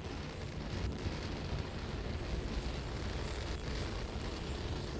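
Rocket exhaust from Starship SN11's three Raptor engines heard from the ground during ascent: a steady noise strongest in the low end, with faint crackling.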